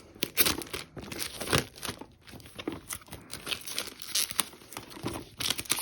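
A smartphone's retail box packaging being handled and torn open: irregular crinkling, crackling and ripping, with a louder rip near the end.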